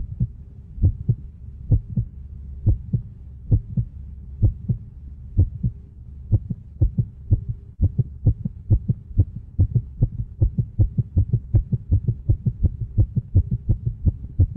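Heartbeat sound effect: paired low thumps, about one pair a second at first, quickening in the second half, over a faint steady low hum.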